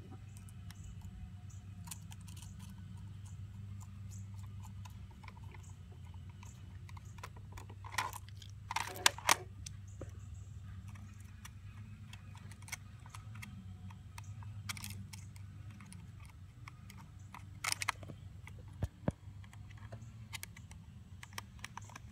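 Small screwdriver turning the screws of a DB9 connector plug: scattered light clicks and scrapes of metal on metal and plastic, with a few louder clusters of clicks, over a steady low hum.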